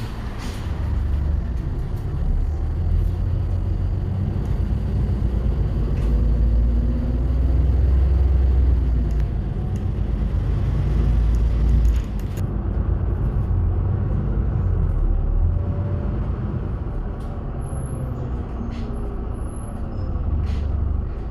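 Empty bus riding along: a low engine and road rumble with scattered rattles, swelling in the middle and dropping off sharply about twelve seconds in, with a faint whine that shifts in pitch.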